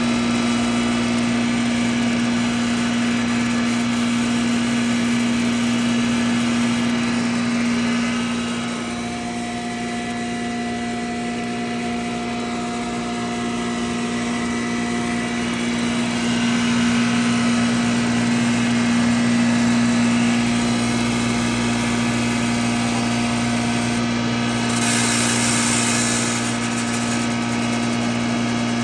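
Rice husk and bran grinding machine running steadily as husks are fed through it, with a constant hum. A brief hiss rises over it near the end.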